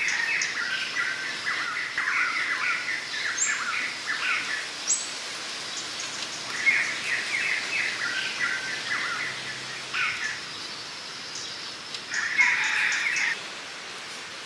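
Birds singing in three bouts of quick, chirping song, with short pauses between them.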